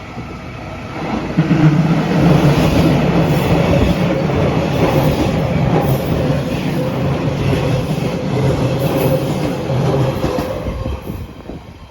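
JR Kyushu 813 series and 811 series electric trains passing each other: wheels on rail with a steady motor hum. It swells about a second and a half in, holds, and fades away near the end.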